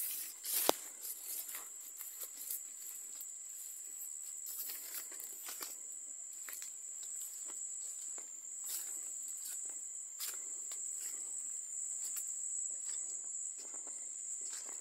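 Footsteps and rustling through undergrowth and bamboo, irregular and fairly soft, with a sharp click under a second in. A steady high insect buzz drones behind them.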